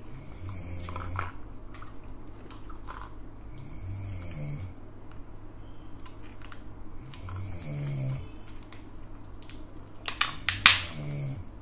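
Cartoon-style snoring sound effect, repeating four times about every three and a half seconds: a low rising-and-falling snore, then a high whistling breath. Near the end, a few sharp crinkles and clicks of a plastic candy wrapper being peeled off a lollipop are the loudest sound.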